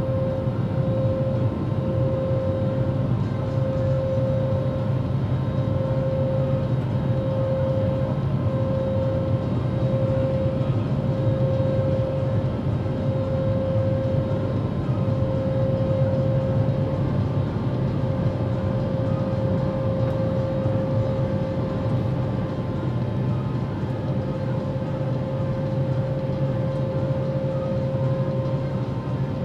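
Cabin noise of an Airbus A320-family jet climbing after takeoff: a steady engine and airflow drone with a constant whine over it.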